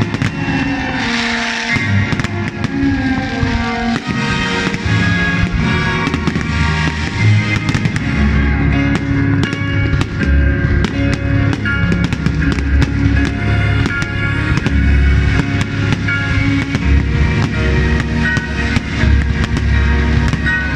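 Fireworks display: many sharp bangs over loud music, with a heavy bass beat coming in about eight seconds in.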